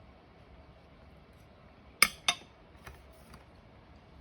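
Two sharp clinks of cutlery striking a dish, about two seconds in and a third of a second apart.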